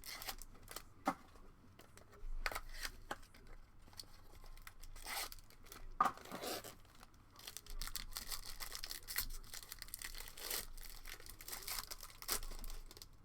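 Trading-card pack wrapper being torn open and crinkled by hand: irregular tearing and crackling rustles of the foil-type wrapper.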